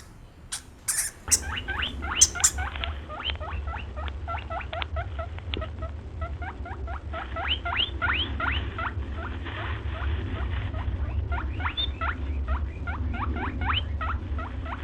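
A small animal squeaking rapidly: many short, high squeaks, several a second, over a steady low rumble. A few sharp clicks come just before the squeaking starts, about a second in.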